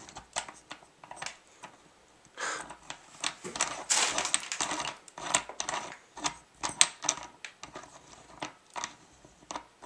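Plastic and metal parts of a light stand's umbrella bracket clicking and rattling as they are handled and the locking knob is turned, in irregular clicks with a busier clatter around the middle.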